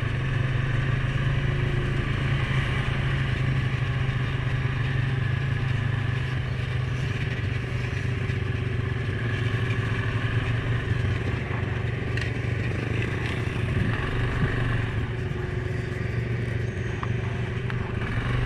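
Suzuki King Quad 750 ATV engine running steadily at low speed under light throttle, with no hard revving.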